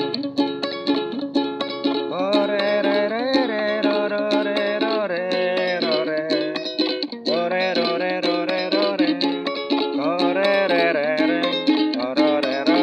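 Ukulele strummed in a steady kroncong accompaniment while a man sings along, his voice carrying the melody over most of the passage.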